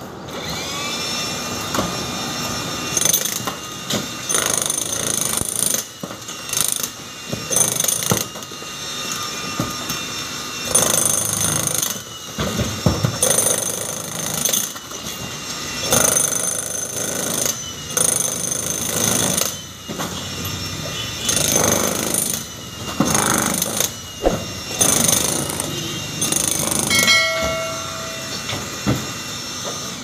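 Handheld jackhammer breaking concrete, hammering in repeated bursts with short pauses between, a steady motor whine running under the blows.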